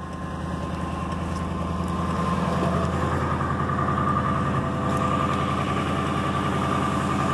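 Ford Crown Victoria Police Interceptor's 4.6-litre V8 idling steadily just after an extremely cold start, having sat unstarted for weeks, growing a little louder over the first couple of seconds. A faint steady whine runs over the engine note.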